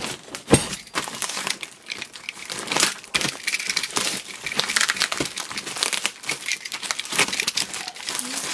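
Plastic stretch wrap and packing tape crinkling and tearing in irregular crackles as a utility knife and hands work through the layers wrapping a cardboard box. A single sharp knock about half a second in.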